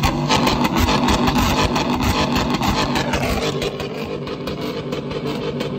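Pickup truck engine revved hard and held high through a loud aftermarket exhaust, easing off slightly after a few seconds.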